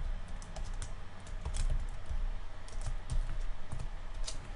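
Typing on a computer keyboard: a run of irregular keystrokes.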